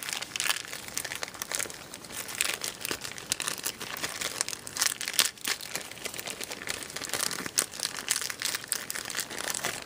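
Plastic packaging crinkling and rustling continuously as it is handled, with many small irregular crackles and clicks.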